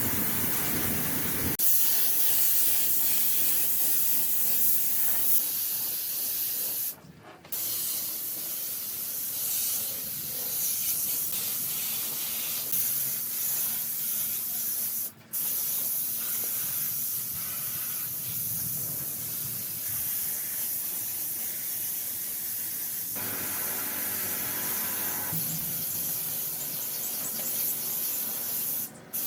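A steady high-pitched hiss, like air or spray being released, with brief breaks about a quarter of the way in, about halfway and near the end.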